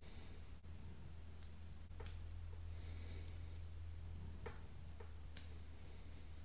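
A handful of faint, sharp clicks and light taps from a small aluminium filament cutter being handled and turned over in the fingers, over a low steady hum.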